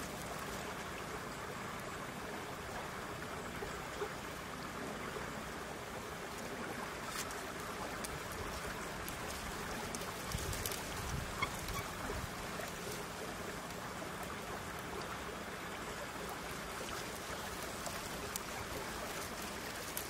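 Steady rushing of flowing water, with a few faint clicks about halfway through.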